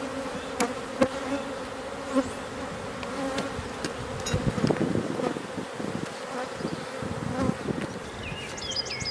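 Honey bees buzzing in a steady hum over an open hive, with a few light knocks and clicks scattered through. A short run of high chirps comes in near the end.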